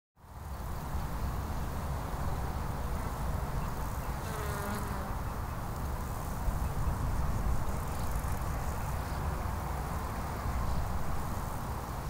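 Summer pasture field recording: flies and other insects buzzing over a steady low rumble and hiss, fading in at the start, with a short animal call about four seconds in.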